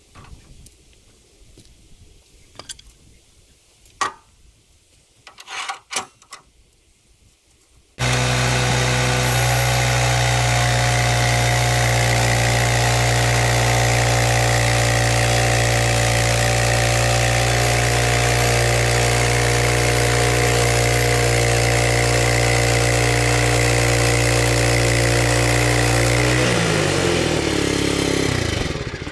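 A few short knocks, then about eight seconds in a sawmill's gasoline engine comes in abruptly and runs at a steady speed. Near the end it slows, dropping in pitch, and stops.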